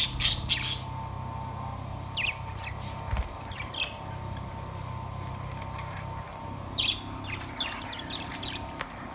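Budgerigars chirping: a quick run of harsh squawks in the first second, then scattered short chirps, over a steady low hum.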